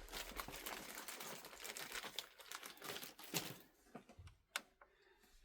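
Crinkly wrapping being handled, a rustling crinkle full of small clicks. It thins out after about three and a half seconds to a few isolated clicks.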